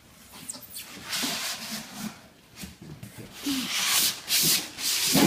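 A stainless range hood being lifted out of its cardboard box, with cardboard and plastic film rubbing and scraping in several bursts.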